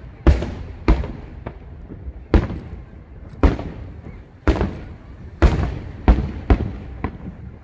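Aerial firework shells bursting in a fast series, about one loud bang a second, each trailing off in a rolling echo.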